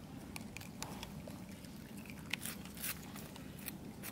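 Long-tailed macaques foraging on the ground: scattered small clicks and ticks over a low, steady rumble.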